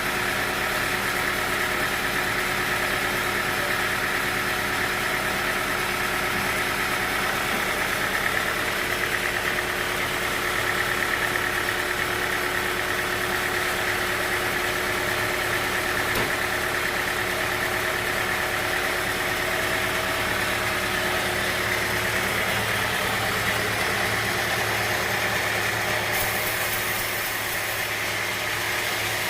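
Sawmill machinery running steadily with a constant mechanical hum. Near the end a higher hiss comes in.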